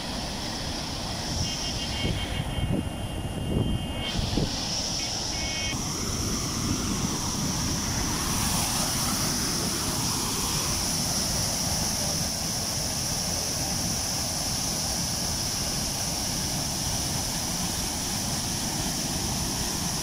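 Large waterfall, a heavy flow of river water pouring over rock ledges into a churning pool, making a steady rushing noise, with a few low thumps in the first few seconds.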